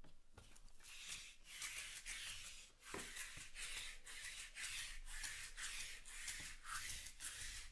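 Sticky lint roller rolled back and forth over a mat, its adhesive sheet crackling in a quick run of short strokes, starting about a second in.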